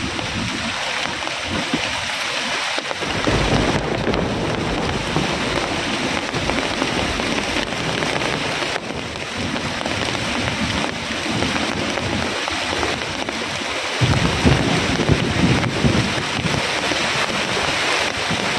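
Heavy rain pouring down steadily, with low rumbles of thunder that come in about three seconds in and again, louder, near the end.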